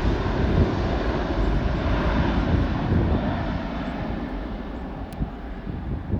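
Jet engine noise from a departing Boeing 767's two turbofans at takeoff power, a dense low rumble that slowly fades as the airliner climbs away.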